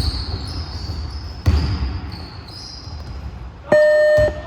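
Basketball game sounds on a gym court: a ball bouncing with a thud about one and a half seconds in, short high sneaker squeaks, then a loud electronic buzzer sounding for about half a second near the end.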